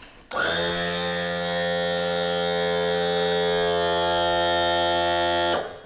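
Power trim and tilt motor of a 2006 40 hp Mercury four-stroke outboard running, tilting the motor up. It is a steady electric hum that starts a moment in and cuts off shortly before the end.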